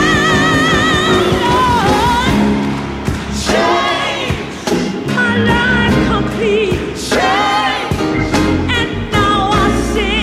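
Gospel music: a singer holding long notes with heavy vibrato over a steady band accompaniment.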